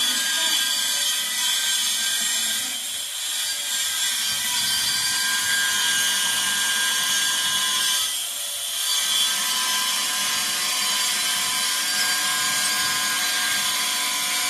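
Steady high-pitched whine of a small motor, dipping briefly twice.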